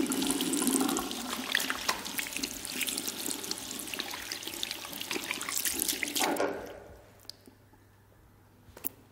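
Tap water running into a washbasin with splashing, stopping after about six and a half seconds. A couple of faint clicks follow near the end.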